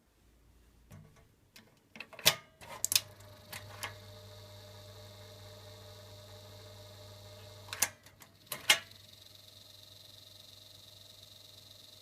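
1976 Mitsubishi E-20RG3 ventilation fan: several sharp clicks about two seconds in, then its motor runs with a steady hum. Two more loud clicks come about eight seconds in, after which the running sound continues more quietly.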